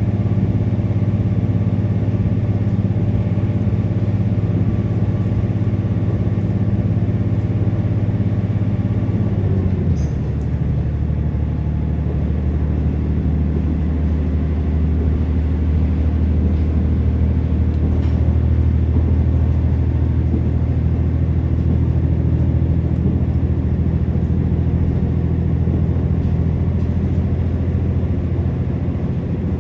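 Diesel engine and running noise of a KiHa 47 railcar under way, heard from inside the passenger cabin as a steady drone. About ten seconds in, the engine note drops abruptly to a lower pitch and carries on steadily.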